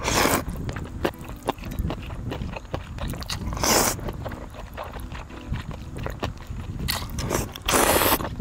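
Someone eating cold chicken noodle soup (chogye guksu): chewing with many small clicks, and three louder noisy bursts, one at the start, one about three and a half seconds in and one near the end.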